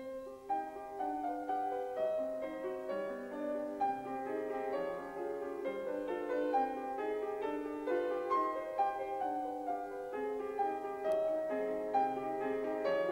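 Instrumental music led by a piano playing a steady stream of short notes and chords, starting suddenly.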